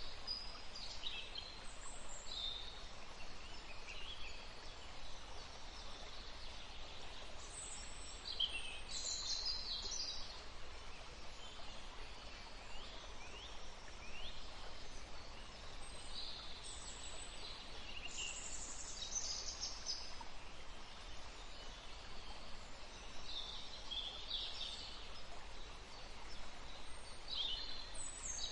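Woodland stream running steadily, with birds calling off and on over it.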